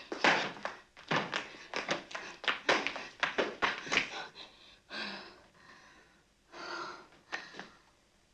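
A rapid flurry of fist blows thudding on a man's back, which stops about four and a half seconds in. Then come a few heavy, gasping breaths from the exhausted woman who was striking him.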